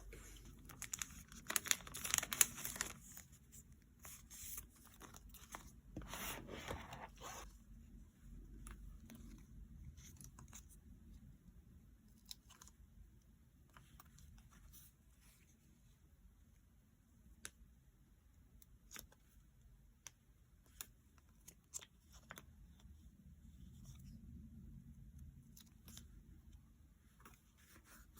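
Tearing of paper from diary-decorating work, two longer tears in the first seven seconds, followed by scattered light clicks and taps.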